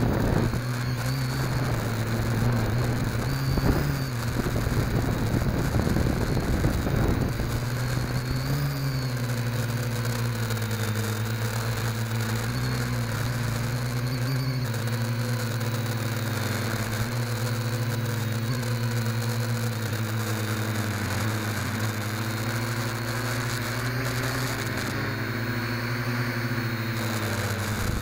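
FPV quadcopter's electric motors and propellers whining steadily, as picked up by its onboard camera, the pitch drifting up and down with throttle. A rougher, buffeting rush overlays them for the first several seconds.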